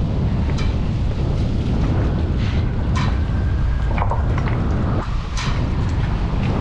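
Wind rumbling steadily on the microphone, with a few short clicks scattered through it.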